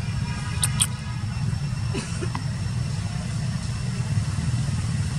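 A steady low engine rumble, like a nearby engine idling, with two short high clicks a little under a second in.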